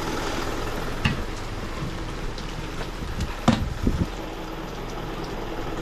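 Heavy rain falling on a wet street, with the Isuzu N75.150 bin truck's diesel engine idling under it. A few short knocks come about a second in and twice more past the halfway point.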